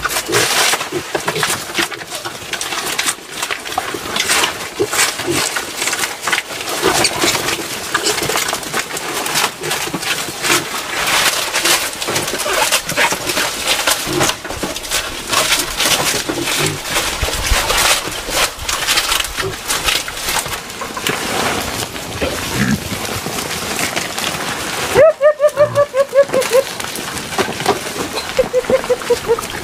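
Wild boar and piglets feeding on a pile of fresh leaves: dense crunching, tearing and rustling of leaves being chewed, with short calls here and there. Near the end comes a run of quick repeated calls.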